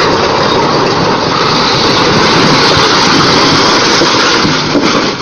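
Concrete mixer truck toppling off the edge of an embankment and crashing down with the collapsing earth: a loud, continuous noise with no distinct single impact, easing off near the end.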